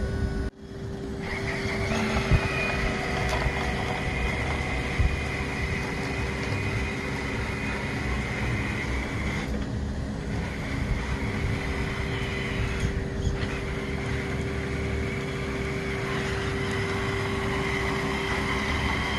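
Small electric motor and gear drive of a radio-controlled Bruder Volvo A60H dump truck conversion whining steadily as the truck drives at full throttle on a 7.4-volt battery, with rolling noise from its tyres. The whine eases off briefly twice, around ten and thirteen seconds in.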